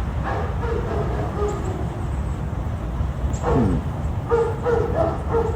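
A dog whining and giving short yips, one falling whine partway through and a quick run of yips near the end, over a steady low rumble.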